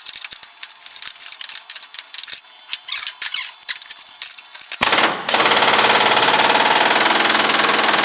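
Irregular light clicking and rattling, then about five seconds in a pneumatic impact wrench starts hammering steadily on a tight, stuck bolt of the truck's front clip.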